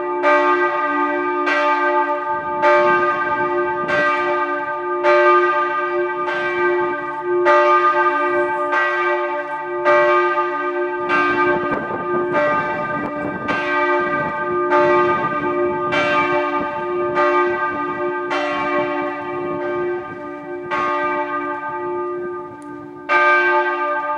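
Several church bells ringing together: a higher bell strikes about once a second over the steady, lingering hum of deeper bells.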